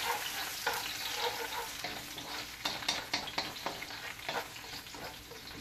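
Minced garlic sizzling in hot oil in a wok, stirred with a wooden spoon that scrapes and clicks against the pan many times.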